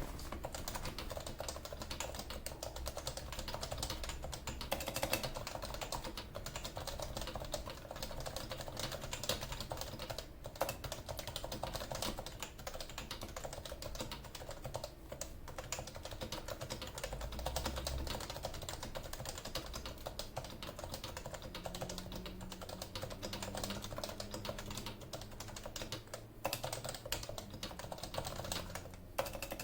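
Continuous fast typing on a Leopold FC980C keyboard with 45 g non-silent Topre electro-capacitive switches, a steady stream of muted key strikes with a few harder ones standing out. Each key bottoms out firmly, giving the board's distinctive "thock".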